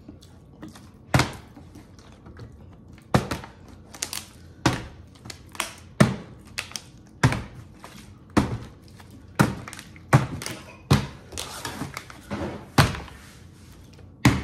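A plastic water bottle being flipped and landing on a kitchen countertop again and again: about a dozen sharp thunks, roughly a second apart.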